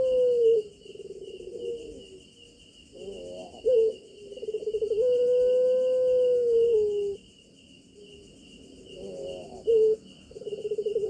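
Puter pelung (a Barbary dove bred for its long coo) cooing. Each call opens with a fast rolling trill and swells into a long held coo of about two seconds, with shorter rolling coos between. A steady high insect chirping runs behind.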